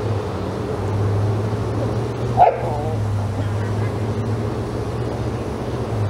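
A dog gives one short bark about two and a half seconds in, over a steady low hum.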